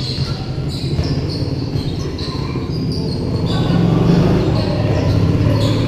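Basketball game in play: the ball bouncing on the court and players' voices and movement, over a steady low rumble.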